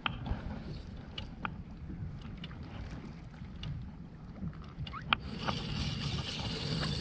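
Wind buffeting the microphone and water moving around a kayak, with scattered small clicks of a spinning rod and reel being handled; a louder hiss comes in about five seconds in.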